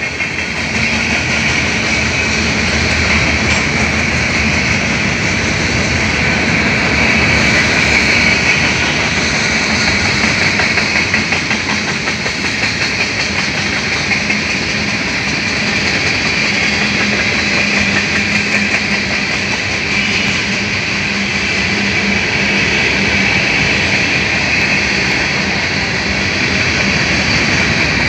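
Freight train of tank cars rolling steadily past, steel wheels rumbling and clattering over the rails.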